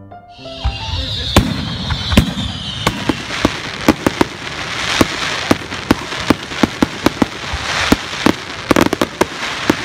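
Fireworks going off: a hiss in the first second, then a rapid string of sharp bangs, several a second, over continuous crackling. The last notes of piano music fade out right at the start.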